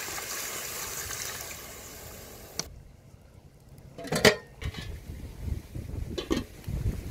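Water pouring into an aluminium cooking pot of meat, a steady splashing hiss that fades over the first two and a half seconds. About four seconds in the pot's metal lid clanks loudly, and a second, lighter clank comes a little after six seconds.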